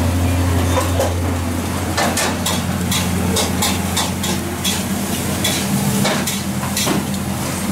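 Metal ladle clanking and scraping against a wok as egg fried rice is stir-fried, with sizzling. The sharp clanks come several times a second from about two seconds in, over a steady low hum.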